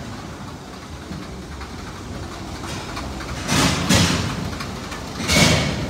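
Komatsu forklift engine running steadily at low speed, with two loud bursts of noise about three and a half and five seconds in.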